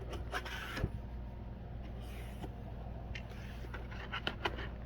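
Package for a magnet-fishing magnet being handled and opened by hand: scattered clicks, taps and a short rustle of packaging, over a steady low hum.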